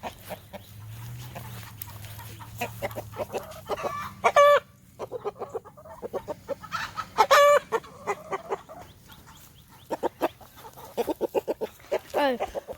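Chickens clucking in a pen, with two loud calls about four and seven seconds in and a falling call near the end.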